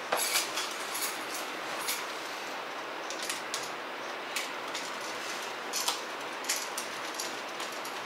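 Scattered light clicks and small metallic scrapes as a copper wire is looped onto a three-way light switch's brass terminal screw and a screwdriver is set to the screw, over a steady hiss.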